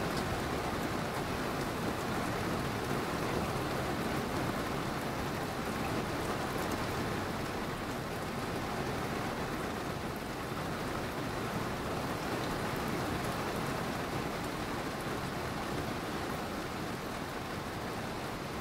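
Steady rainfall: a dense, even hiss of rain on surfaces, with no distinct thunderclap or rumble.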